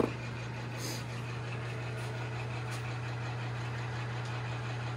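A steady low hum, like a motor or electrical equipment running, with one sharp click right at the start.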